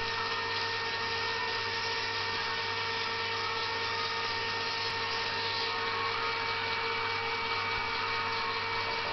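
Electric chocolate fountain's motor running: a steady hum with several constant whining tones and a hiss.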